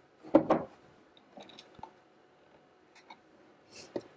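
A plastic desk phone base set down on a wooden desk: a quick double knock about half a second in, then light clicks and rustles as the plastic housing is handled.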